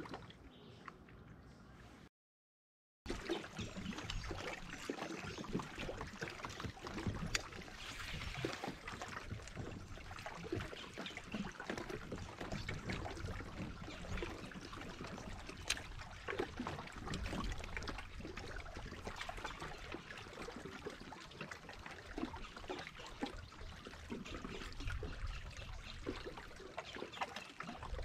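Water lapping and splashing against a kayak hull, a continuous uneven wash with small ticks and knocks. It drops to dead silence for about a second near the start, then resumes.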